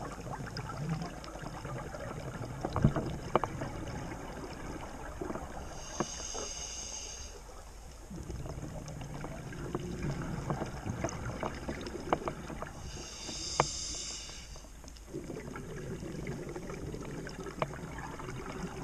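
Scuba diver breathing through a regulator underwater: two short inhalation hisses about seven seconds apart, with the gurgle of exhaled bubbles between them and scattered sharp clicks.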